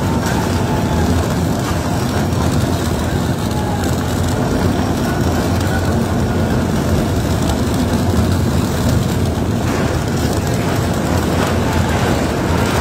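Steady low rumble and grinding of a tunnel boring machine cutting through the last rock of the shaft wall just before breakthrough.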